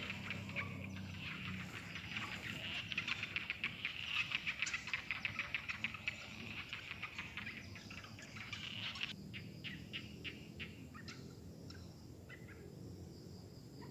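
Outdoor animal calls: a dense run of rapid, high chirping pulses that stops about nine seconds in, followed by sparser short chirps.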